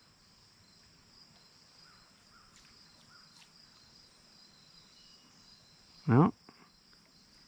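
Faint, steady high-pitched chorus of insects such as crickets, with a few faint ticks.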